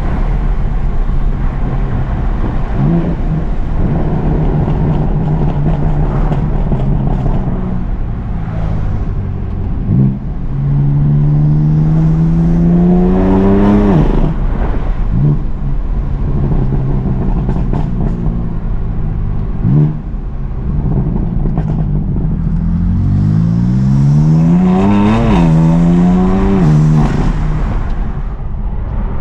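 BMW M4 CS's twin-turbo straight-six cruising, then revving hard twice under full throttle, the pitch climbing and then dropping suddenly at each gear change.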